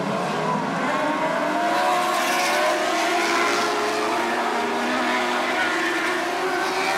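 A pack of winged lightning sprint cars running around a dirt oval, several engines revving at once with overlapping engine notes rising and falling.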